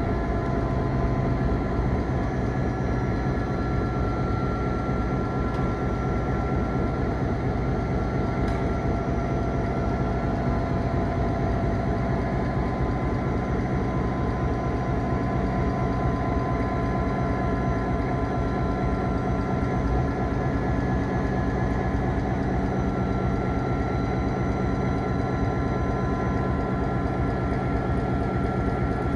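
EMD F3 diesel locomotive's 16-cylinder two-stroke 567 engine running steadily, a deep even throb with a few steady whining tones above it.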